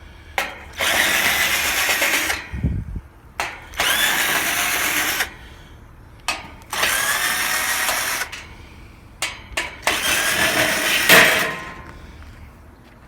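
Cordless power drill running in four bursts of about a second and a half to two seconds each, with short clicks and knocks in the pauses between them.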